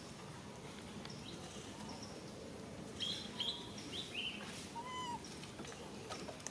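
Birds chirping in the background: a cluster of short high chirps about three seconds in, then a single lower call that rises and falls, over steady outdoor noise.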